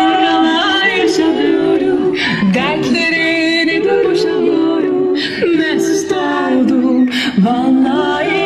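Music led by a singing voice that holds long, wavering notes, with short hissing consonants every second or two.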